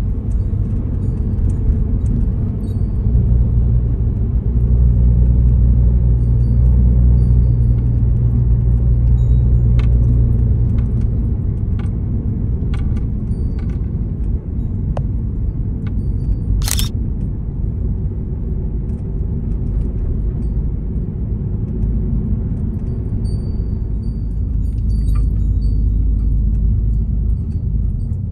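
Steady low road and engine rumble inside the cabin of a moving vehicle, with a few faint clicks and one short sharp click a little past the middle.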